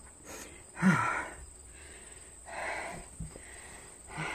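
A woman breathing heavily through her mouth, with long breathy exhales about every second and a half; the loudest, about a second in, opens with a short voiced sigh. She is winded and hot from working outdoors in humid heat.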